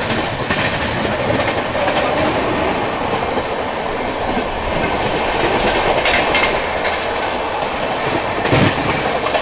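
Passenger train running at high speed, with the steady rush and clatter of wheels on the track and a brief louder knock near the end.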